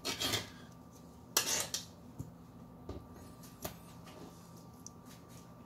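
Fillet knife cutting the rib cage away from a jack fillet on a plastic cutting board: two short scraping cuts in the first two seconds, then a few light clicks of the blade against the board. A faint steady hum runs underneath.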